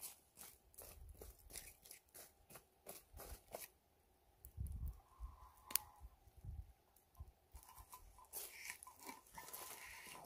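Charcoal embers crunching and crackling softly in quick, irregular clicks for the first few seconds as a gloved hand spreads and presses them flat. One sharp click comes a little past the middle, and a soft scraping rustle near the end as a steel frying pan is set down on the coals.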